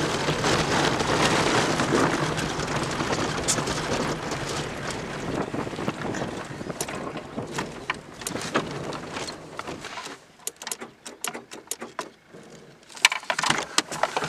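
Road and tyre noise inside a coasting Peugeot 306 whose engine has died, slowly fading as the car slows. After about ten seconds it drops quieter, with scattered clicks and knocks.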